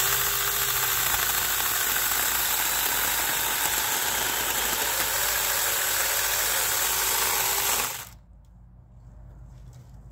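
Saker cordless mini electric chainsaw running at full speed while cutting into a branch, a steady loud whir that starts suddenly, holds for about eight seconds, and stops abruptly when the trigger is released.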